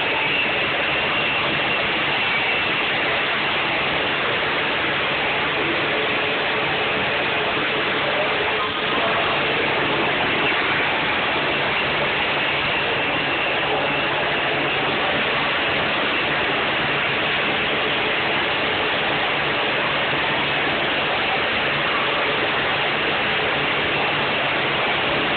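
Steady machinery noise with a low hum, unchanging throughout.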